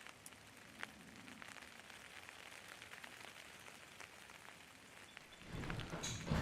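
Light rain falling, a faint patter with a few sharper ticks of single drops, one about a second in. A louder low rumble comes in near the end.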